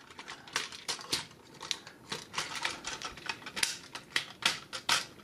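Hard plastic parts of a Transformers G1 Ultra Magnus figure clicking and knocking against each other in quick, irregular taps as they are lined up and pegged together.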